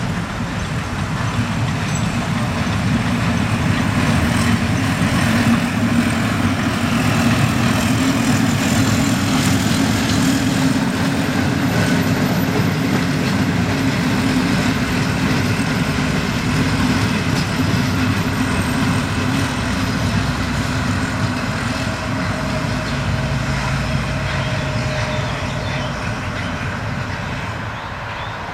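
Steam-hauled train passing on the line: the sound builds to its loudest several seconds in, then slowly fades as the train moves away.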